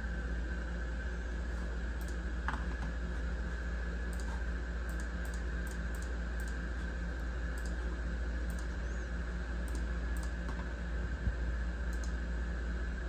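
A few scattered, irregular clicks at a computer, over a steady low hum.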